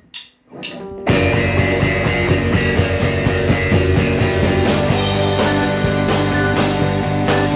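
A rock band starts playing about a second in, after a few faint knocks: drum kit and electric guitars together, loud and dense.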